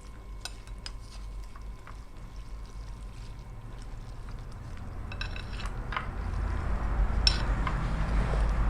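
Spoon and chopsticks clinking and stirring in a bowl of fish noodle soup, with a few light clicks. A low rumble builds over the last few seconds and becomes the loudest sound.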